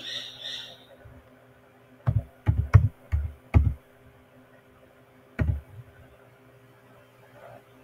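Computer keyboard keystrokes as a date is typed: five loud key strikes in quick succession about two seconds in, then a single one a couple of seconds later.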